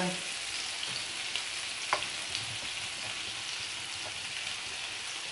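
Sweet pepper and onion frying lightly in oil around meat patties, a steady gentle sizzle in the pan. A single sharp click about two seconds in.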